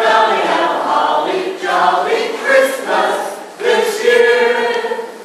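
A mixed group of Christmas carolers, men and women, singing a carol a cappella, closing on one long held chord near the end.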